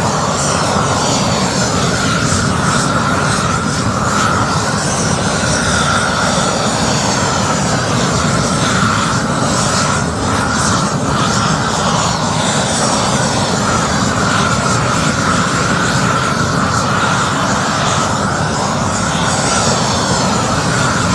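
Gas roofing torch burning steadily with a loud rushing noise and a slightly wavering tone, heating elastomer bitumen membrane to weld it.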